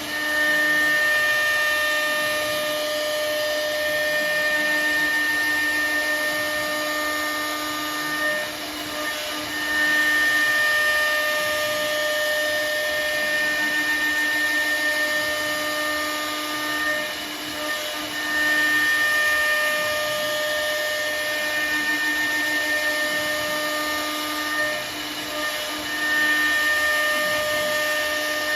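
CNC router spindle running at a steady high-pitched whine while milling, with the sound of the cut over it. The level dips briefly about every eight seconds, about eight, seventeen and twenty-five seconds in, before the whine comes back.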